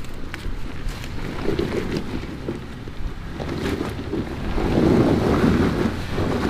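Toyota 4Runner driving on an off-road trail: engine and tyre noise with wind buffeting the microphone, growing louder about four seconds in.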